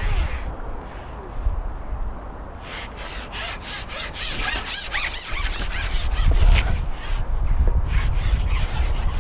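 Long carbon fishing pole rubbing and scraping as it is slid out over the water, a run of quick rubbing strokes starting about three seconds in, over a low rumble.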